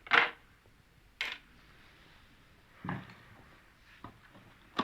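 Handling noises from TV parts being moved on a workbench: a sharp knock just after the start, another about a second later, a duller knock near the middle, and a few small clicks near the end.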